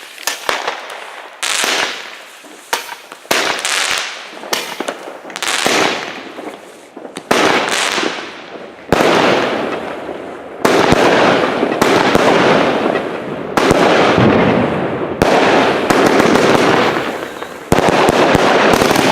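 Rubro Giant Blast 29-shot firework cake firing its shots one after another, each a sharp bang trailed by a fading hiss. From about halfway through the shots come louder and the noise between them runs on almost without a break.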